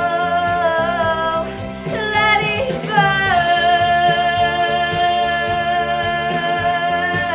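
A girl's voice singing long held, high notes over backing music, with a brief run of shorter notes about two seconds in before another long note.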